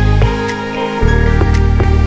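Runway music: electronic music with a deep, sustained bass line and a steady beat. The bass drops out for about half a second near the middle.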